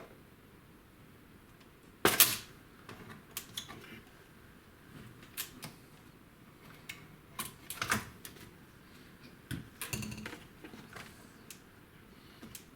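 Scattered clicks and knocks of hard parts being handled inside an HP 9825B during disassembly, the loudest one about two seconds in.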